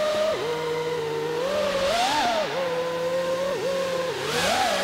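FPV freestyle quadcopter's brushless motors and propellers whining at a steady high pitch, the pitch dipping and swinging back up several times as the throttle is eased and punched.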